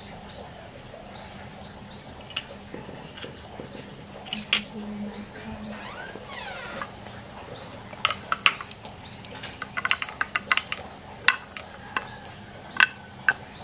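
Small balls clicking sharply against each other and the wooden slope toy as they are handled and set down, a run of clicks in the second half. A bird chirps repeatedly in the background, over a faint steady hum.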